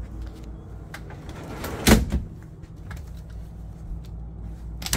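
A single sharp knock about two seconds in, like a wooden cabinet panel being shut, among small handling clicks over a steady low hum.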